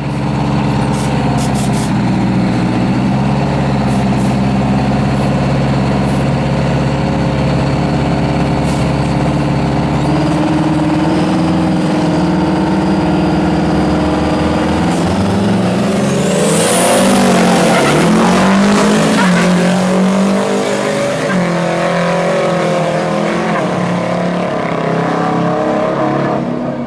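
Diesel drag-racing semi-truck engines held at a steady high idle on the starting line. About halfway through they launch: the engines rev up, with the pitch climbing and dipping several times as the trucks shift gears, and a brief high hiss comes near the launch.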